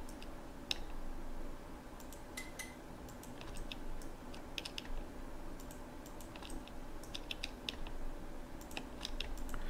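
Irregular, scattered clicks of a computer mouse and keyboard as edges are picked one by one, over a faint steady hum.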